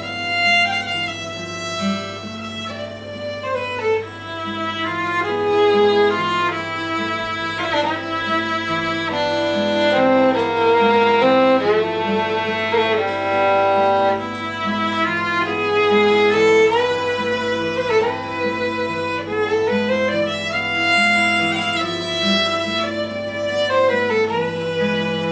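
Instrumental folk music: a violin plays the melody over acoustic guitar accompaniment, and a clarinet joins in during the second half.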